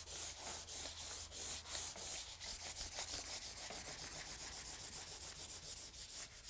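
A stick of compressed charcoal scraping back and forth over drawing paper in quick, even strokes to lay down a dark black tone, a dry rasping hiss with each stroke. The strokes come about three to four a second, quickening to about five a second from about halfway, and stop at the very end.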